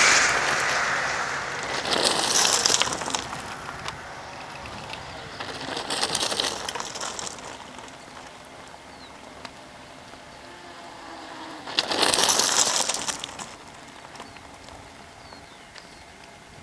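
Mountain bikes rolling past on asphalt three times, each pass a few seconds of rising and fading hiss with fine ticking. Birds chirp faintly near the end.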